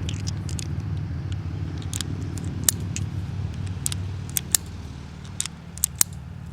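Italian Model 1889 Bodeo revolver being loaded: 10.35 mm cartridges are pushed into the cylinder through the open loading gate and the trigger is pulled to turn the cylinder, giving irregular sharp metallic clicks. A low steady hum runs underneath.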